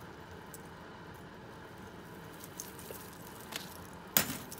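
Jewelry being picked through by hand: a few faint clicks, then one sharp clack near the end as pieces knock together.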